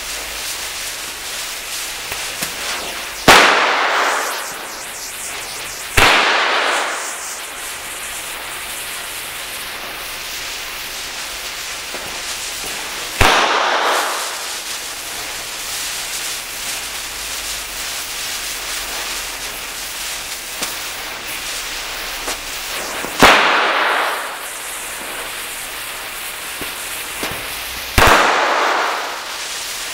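Firecrackers strung along a burning fuse: a steady hiss runs throughout, broken by five sharp bangs at uneven intervals, each echoing away over about a second.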